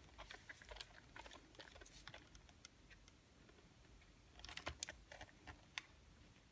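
Faint scattered clicks and rustles of scissors and hands trimming excess heat-transfer vinyl from a headphone band, with a cluster of sharper clicks about four and a half seconds in.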